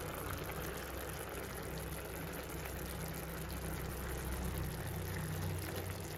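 Grated carrot, milk and sugar mixture simmering in a non-stick pan: a steady soft bubbling and crackle over a low, even hum.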